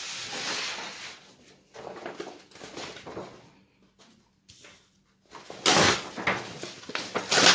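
Rustling and bumping handling noise as a sheet of paper is fetched and handled, with two sharp, louder rustles near the end.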